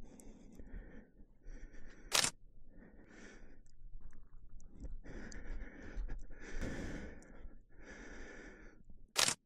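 Smartphone camera shutter clicking twice, once about two seconds in and again near the end, as photos are taken. Soft, repeated scuffing sounds come in between.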